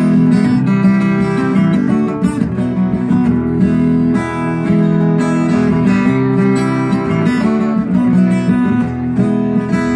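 Acoustic guitars playing an instrumental passage: strummed chords that change every second or so, with no singing.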